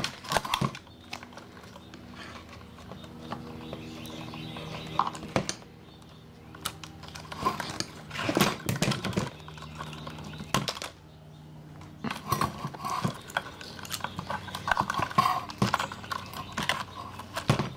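Side cutters snipping wires inside a light fixture, with the fixture's metal housing, wires and plastic circuit board clicking and rattling as they are handled: irregular clicks and knocks, a cluster of louder ones about halfway through.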